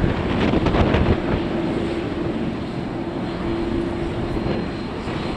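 Airliner engines running, heard as a steady rushing noise with a faint held tone, while strong wind buffets the microphone in gusts, hardest in the first second or so.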